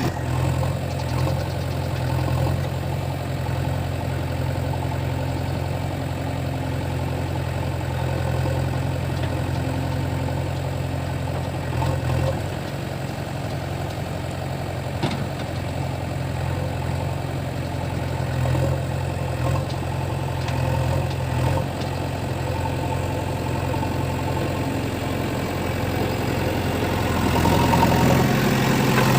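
JCB 3DX backhoe loader's diesel engine running steadily with a low hum, with one sharp click about halfway through, and the engine getting louder near the end.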